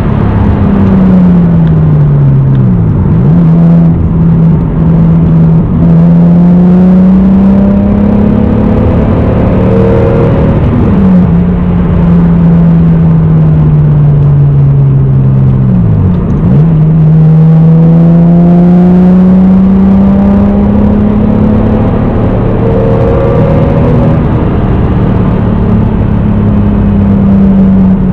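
1993 Toyota Supra's naturally aspirated 3.0-litre inline-six (2JZ-GE), on a full aftermarket exhaust with a K&N cold air intake, running under load while driving. The engine note climbs and falls slowly with road speed, broken by short dips in pitch at gear changes about 3, 11 and 16 seconds in.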